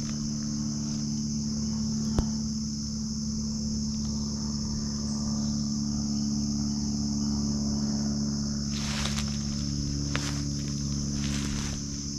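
Steady high-pitched chorus of insects trilling in the forest, over a steady low hum. Footsteps on the trail scuff through brush a few times near the end.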